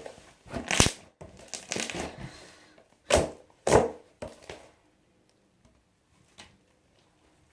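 Soft slime being squeezed and stretched by hand, giving a handful of sharp pops and clicks in the first half.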